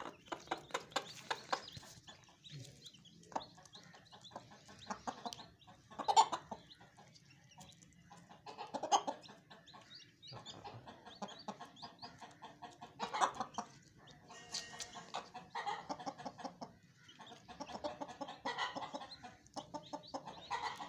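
Broody hen clucking over her chicks as grain is offered to them, in a run of short calls with louder ones about six, nine and thirteen seconds in.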